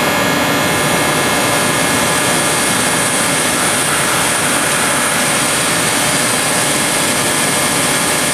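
Nitrogen rushing through a refrigerant line and out of its open end into a rag, a loud steady hiss: the line being blown out to flush debris and contamination after a compressor burnout.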